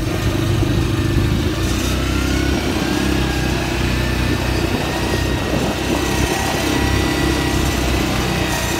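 Quad (ATV) engine running steadily while under way, with a faint high whine that rises slowly.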